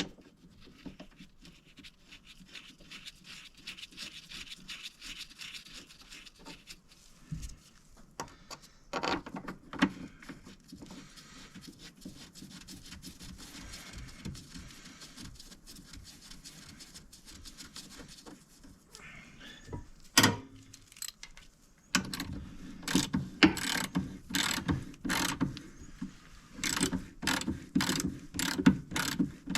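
Metal clicking, rattling and scraping from hand-tool work on the track loader, with a quick run of sharp clicks in the last several seconds.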